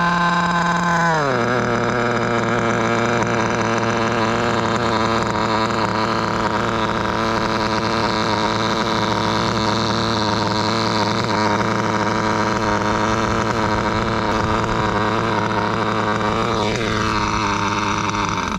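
Novarossi Mito 35 nitro two-stroke glow engine in a 1/8 GT RC car, running on its first start and not yet tuned. Its revs drop about a second in, then it idles steadily at a high, buzzing pitch.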